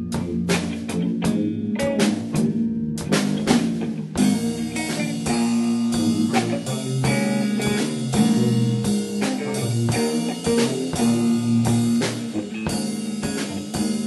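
Band music with guitar, a low bass line and a drum kit keeping a steady beat. The band plays sparser at first, with separate drum hits, and grows fuller and denser about four seconds in.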